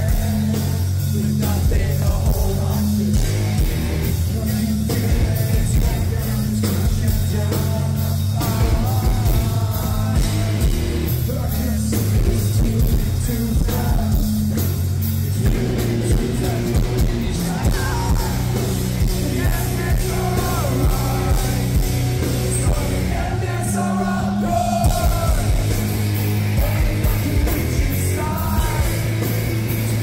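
A live rock band playing loud through a festival PA: distorted electric guitars, bass and drums, with the singer singing and yelling into a microphone. The vocal line comes through more strongly from about halfway in.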